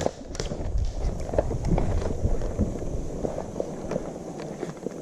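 Footsteps of a person running over the ground, with wind buffeting the microphone.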